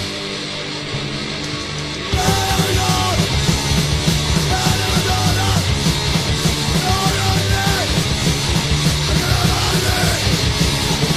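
Hardcore punk recording: a sparse intro, then about two seconds in the full band comes in loud with drums, distorted guitars and shouted vocals.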